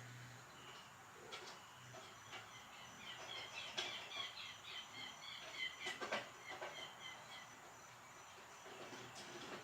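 Faint nature-ambience sound effects played in reverse: a steady hiss with a run of quick, high chirps in the middle and a few scattered clicks.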